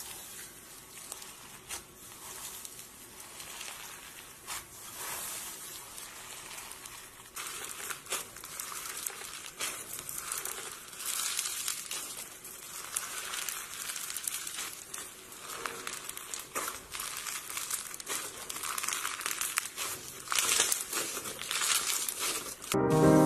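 Hands squeezing and pressing slime packed with tiny iridescent beads: a dense crackling and crinkling of the beads, growing louder after the first several seconds.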